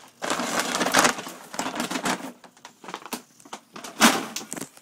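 English bulldog crunching dry kibble: a dense run of crackling crunches for about two seconds, then scattered crunches and clicks, with one sharp louder crunch about four seconds in.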